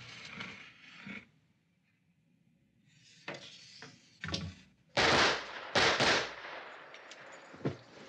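Gunshots: a couple of sharp cracks, then two much louder shots about a second apart with a long echoing tail, and one more faint crack near the end.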